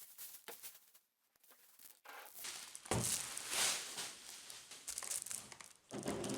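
Packaging crinkling and tearing as a puzzle is unwrapped from its box, starting about halfway through after a quiet stretch.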